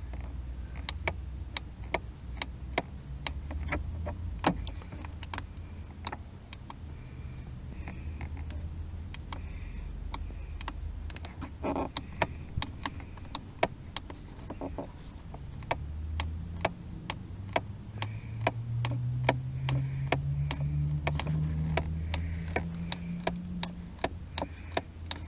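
Irregular small clicks and taps of fingers working a car's plastic interior door handle, over the low rumble of the car, whose engine note rises slowly in the last third as it gathers speed.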